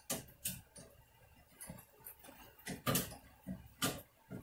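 Metal parts of a tabletop propane fish fryer clicking and knocking as they are fitted and tightened by hand at the burner. It is a string of short, separate clicks, the loudest about three and four seconds in.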